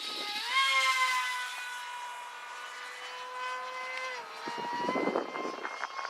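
Great Planes Rifle 1M RC airplane's motor and propeller whining in flight; the pitch rises a little about half a second in, holds steady, then drops at about four seconds. A brief rushing noise follows near the end.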